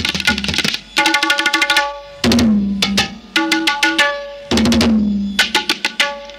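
Music led by hand drums: quick runs of drum strokes, two deep strokes that slide down in pitch about two and four and a half seconds in, and a held pitched note under the drumming twice.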